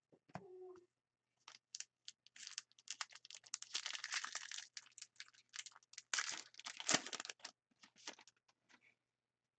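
Hockey card pack wrapper being torn open and crinkled: a dense crackling that builds over the first couple of seconds and thins out to a few scattered crinkles near the end.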